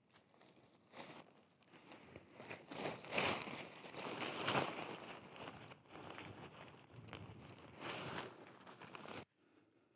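Dyneema composite fabric tent being handled and pulled up onto a trekking pole, its stiff sheet crinkling and rustling in bursts, loudest about three to five seconds in, then stopping abruptly near the end.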